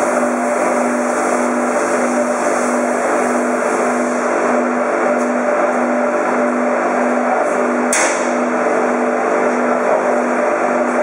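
Meat-processing machinery running with a steady hum and whine. A single sharp knock about eight seconds in.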